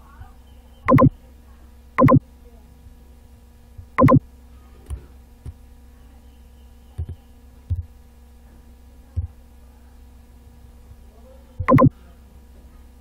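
Computer mouse clicks, four loud ones with a press-and-release double snap each, about a second in, at two and four seconds, and near the end, with a few lighter keyboard key taps in between, over a steady electrical hum.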